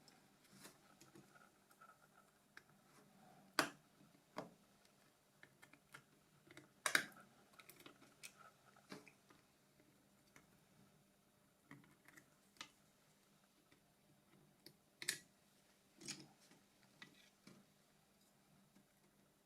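Scattered light clicks and taps of small phone parts and a tool being handled during the disassembly of a Nokia E90 mobile phone, a few sharper clicks standing out among fainter ticks.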